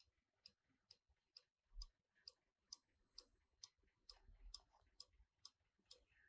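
Trenkle 1-day mechanical cuckoo clock movement ticking steadily, its escapement clicking about twice a second as the pendulum swings. A soft low thump comes about two seconds in.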